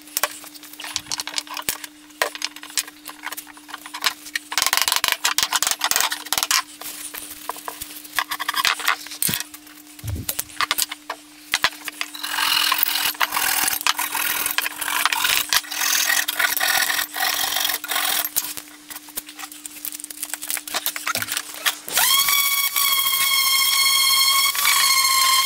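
Fine-toothed hand pull saw rasping back and forth in stretches of short strokes as it trims wooden dowels flush with a wooden handle. Near the end a Hitachi electric orbital sander switches on and runs with a steady whine.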